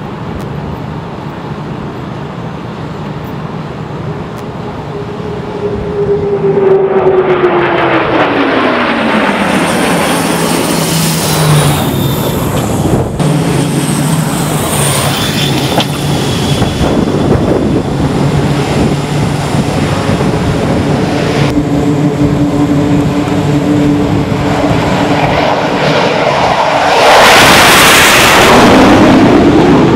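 Military aircraft engines during carrier landings: engine noise whose pitch falls about five seconds in, then steady loud engine noise with a held tone. Near the end a much louder rush comes as an aircraft passes overhead.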